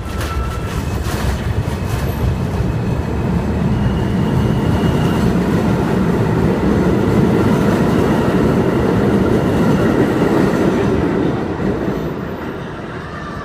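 New York City subway train of stainless-steel cars pulling out of an elevated station and running past, loud and rumbling. It builds over the first few seconds and fades away near the end.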